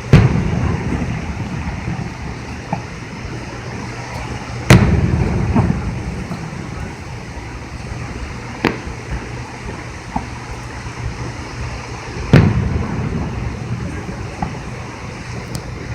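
Fireworks exploding: three loud booms, each followed by a rolling low echo, with several smaller, sharper cracks in between.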